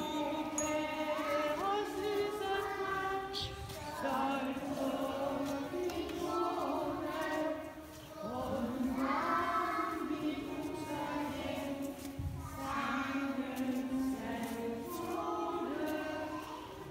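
Young kindergarten children singing together as a choir in a Lucia procession, holding long sung notes in phrases with brief breaks between them, carried by the echo of a church.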